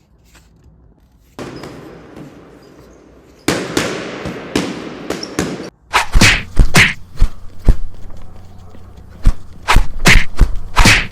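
Rustling noise, then from about halfway a rapid, irregular run of sharp thumps and knocks.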